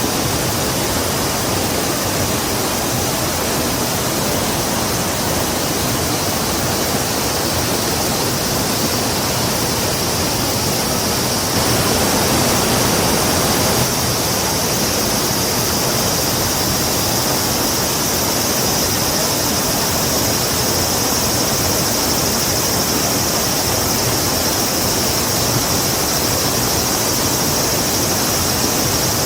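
River rushing steadily, an even wash of water noise with a steady high-pitched band above it. The rush swells a little louder for about two seconds near the middle.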